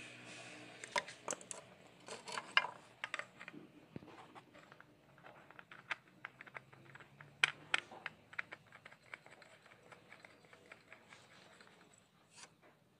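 Irregular clicks and scratchy scrapes of a new Elofic spin-on oil filter being screwed by hand onto a Maruti 800 engine, the metal canister and hand knocking and rubbing against the filter mount. The clicks come in clusters, busiest in the first few seconds and again a little past halfway.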